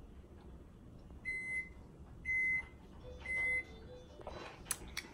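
An electronic appliance beeps three times, about a second apart. Each beep is a short, steady, high tone.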